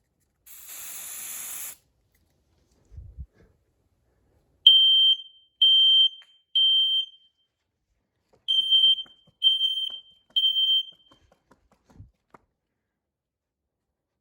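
A second-long hiss of aerosol smoke-detector test spray, then a smoke alarm set off by it, sounding the temporal-three evacuation pattern: three loud, high-pitched beeps about a second apart, a pause, and three more. A few soft knocks and clicks come between and after.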